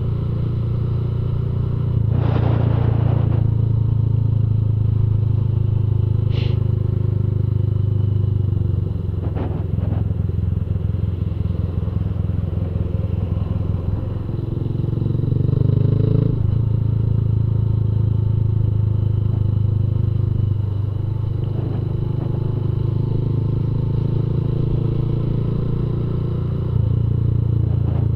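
Honda CG Fan 150's single-cylinder four-stroke engine running through a Fortuna Mini Trioval F1 aftermarket exhaust at low town speed, rising and easing off a few times with the throttle.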